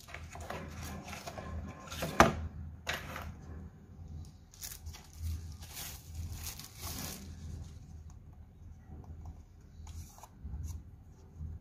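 Rustling and crinkling of a mouse's thin protective wrapping as it is lifted from a cardboard box and unwrapped, with a sharp crackle about two seconds in. It quietens after about seven seconds, leaving a few faint taps of handling near the end.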